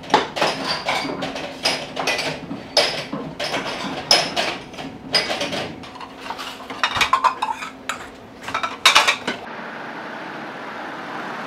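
Ceramic bowls, plates and cutlery clinking and clattering as they are stacked and handled at a kitchen sink, many sharp irregular clinks. Near the end it gives way to a steady street hum.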